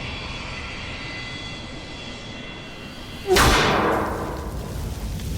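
Room ambience after a live set: a steady low rumble with faint crowd chatter. About three seconds in, a sudden loud hit with a falling sweep fades over about a second, leading into music.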